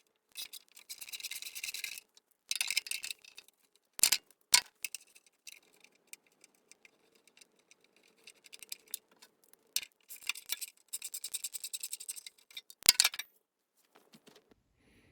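Ratchet wrench clicking in quick runs as the bolts of a small engine's recoil starter cover are backed out, with a few sharp metal clinks between.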